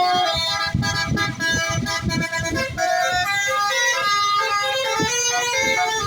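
Bus basuri telolet horn playing a tune: a quick run of loud, stepped horn notes, several pitches sounding together, over the rumble of the bus.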